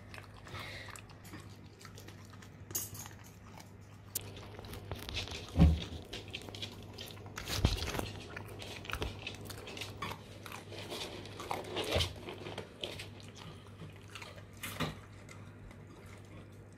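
Alaskan Malamute puppy eating raw food from a metal bowl: irregular wet chewing, licking and crunching. A few louder knocks come about a third of the way in, around halfway, and again later on.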